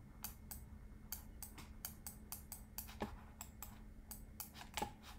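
Computer mouse and keyboard clicks, short and irregular at a few a second, over a faint steady low hum.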